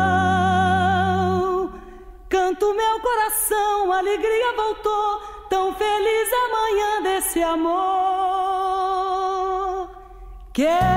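A woman's voice singing a slow melody with wide vibrato on long held notes, mostly unaccompanied after a low instrumental note at the start. The singing breaks off briefly about two seconds in and again near the end.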